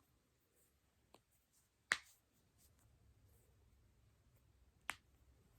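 Joints in the back cracking during a chiropractic-style manipulation: a faint pop about a second in, then two sharp, loud cracks about three seconds apart.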